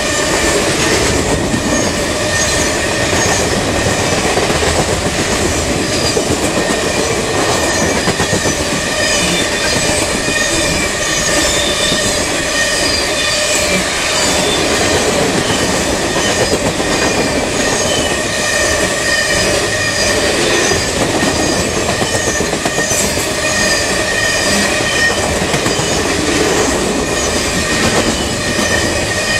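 Empty coal hopper cars rolling past at speed: steel wheels rumbling and clattering over the rails, with steady high-pitched wheel squeal over the top.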